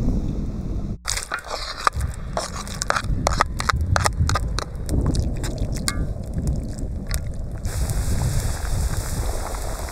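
Outdoor cooking at a steel wok over a wood fire: irregular sharp crackles and scraping clicks for several seconds over a low wind rumble on the microphone. Near the end they give way to a steady hiss.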